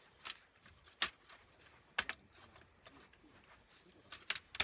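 Scattered sharp clicks and taps of small parts and tools being handled while a laptop is taken apart, the loudest about a second in and a quick cluster near the end.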